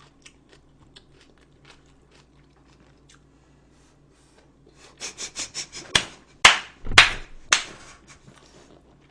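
Close-miked eating: faint mouth clicks, then a quick run of crunches about five seconds in and several loud crunching bites over the next two and a half seconds.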